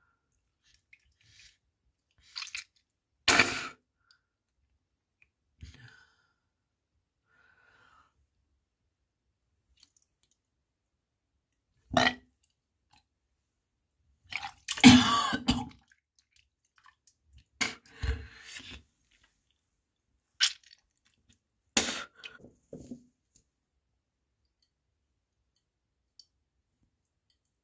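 A nauseous person gagging, retching and coughing in several short, wet-sounding bursts with quiet gaps between them, the loudest about fifteen seconds in.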